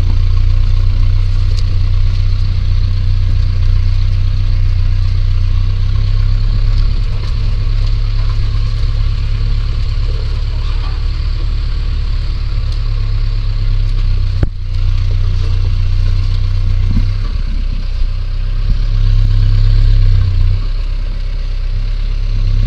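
Vehicle engine running with a steady low hum, swelling a little near the end, with one sharp knock about two-thirds of the way through.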